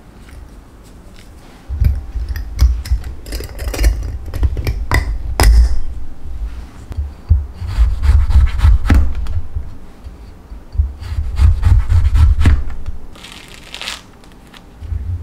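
Large kitchen knife slicing through a grapefruit on a cutting board: scraping cuts and dull thuds as the blade meets the board, in several spells. Near the end the grapefruit peel is pulled away by hand, more quietly.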